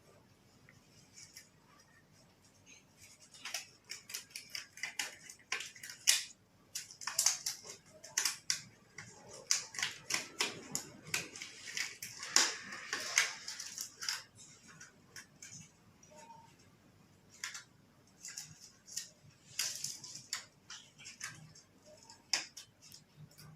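Irregular crinkling, rustling and sharp little clicks of hands pulling on and handling disposable examination gloves. The clicks are busiest from a few seconds in until about halfway, then come again near the end.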